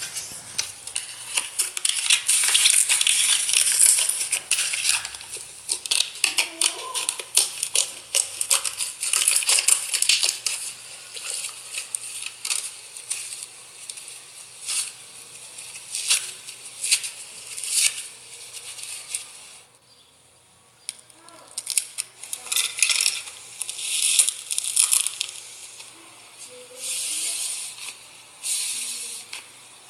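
Slime being squished and worked by hand, a dense run of crackling clicks and pops, with a short pause about two-thirds of the way through.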